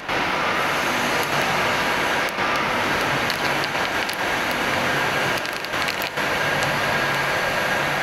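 Steady workshop machinery noise: a continuous rushing hiss with a faint low hum, broken by a few very brief dips.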